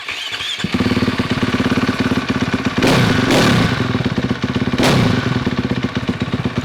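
2013 KTM 450 SX-F single-cylinder four-stroke motocross engine starting on the electric starter and running with an even pulse, blipped twice (about three and five seconds in). The start shows that the new starter freewheel and primary gear work.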